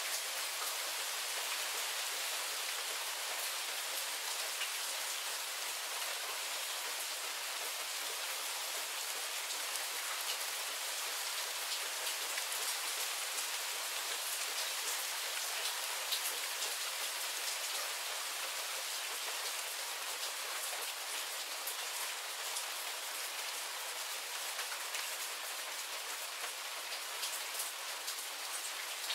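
Steady rain shower falling: a dense, even hiss with many individual drop hits ticking through it.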